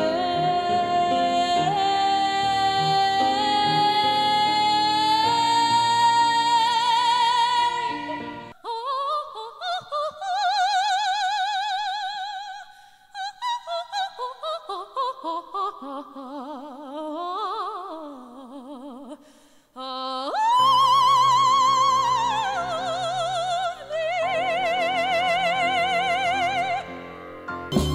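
A woman singing with a wide vibrato. First she holds one long note that climbs in pitch over piano and band until a cut about eight seconds in. Then comes a softer passage with little accompaniment, and from about two-thirds of the way through a loud high held note over the band, falling away near the end.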